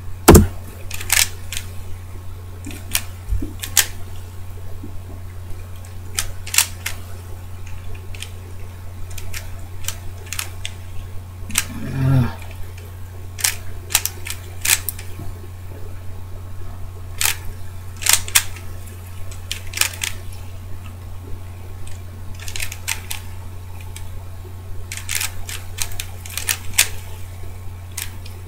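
DaYan ZhanChi 3x3 speed cube being turned fast during a solve: plastic layers clicking and clacking in quick irregular bursts, over a steady low hum.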